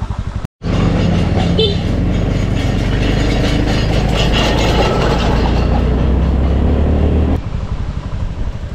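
Small motorbike's engine running under load up a steep climb, with a steady rushing noise. After a brief dropout about half a second in, the engine holds a steady, louder note until about seven seconds in, then settles back to a pulsing beat.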